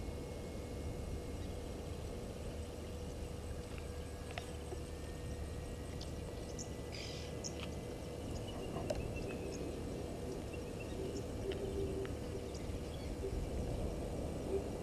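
Steady outdoor background noise with a faint constant hum, scattered soft clicks, and a string of short, faint low calls in the second half.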